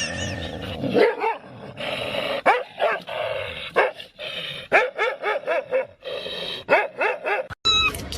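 A dog barking in a series of short, sharp barks and yips, a dozen or so in quick bursts.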